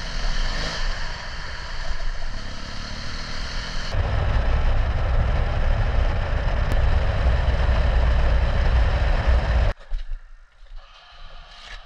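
Adventure motorcycle running on the move, engine and wind noise together, growing louder and heavier about four seconds in. The sound cuts off abruptly near the end, leaving only a few faint clicks.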